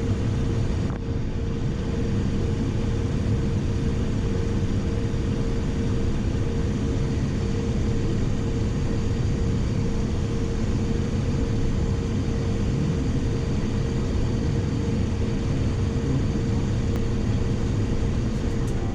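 Cessna Citation XL's turbofan engines and airflow heard in the cockpit: a loud, steady rush with a steady whine.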